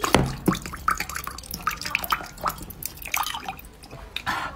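Meltwater dripping from a dome of frozen ice into a glass mug of liquid: a quick run of plinking drops mixed with many small clicks.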